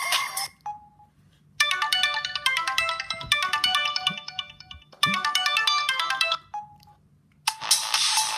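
Samsung S3600 mobile phone ringtones previewed one after another through the phone's speaker. A tune cuts off, then a short beep. A bright chiming melody plays for about three seconds and starts over before being cut off by another beep. After a short pause a busier, buzzier ringtone begins near the end.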